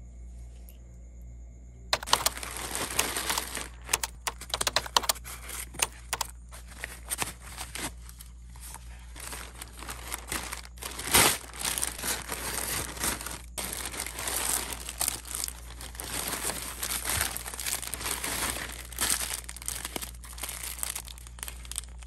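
A plastic poly mailer bag crinkling as it is handled and cut open with scissors, then small plastic zip-lock packets rustling as the contents are pulled out. The crinkling starts about two seconds in and goes on irregularly, with one sharper, louder crack about halfway through.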